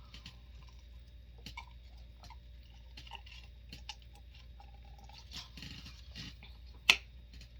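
Close-up mouth sounds of eating: chewing with scattered small wet clicks and smacks. One sharp, loud click or crunch comes about a second before the end.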